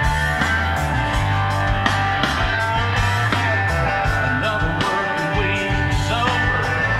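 Rock music playing, with guitar and a steady beat.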